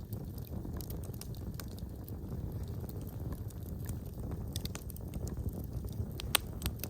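Wood fire in a fireplace burning with a low steady rumble and scattered crackles and pops, one sharper pop near the end.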